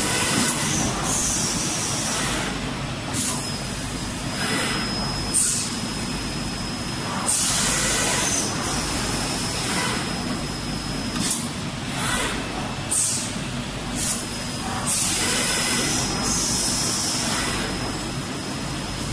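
EPE foam hot air laminating machine running: a steady motor hum with repeated hisses of air every second or two, and a thin high whine that comes and goes.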